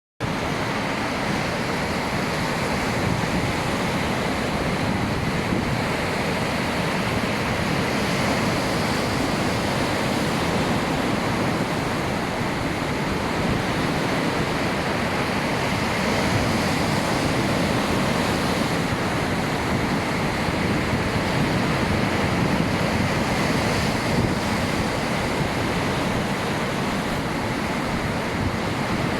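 Sea surf: a steady wash of waves, loud and even throughout, with some wind noise on the microphone.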